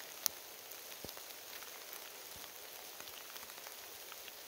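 Steady rain falling, with many small ticks of nearby drops scattered through it; one sharp tick about a quarter second in is the loudest sound.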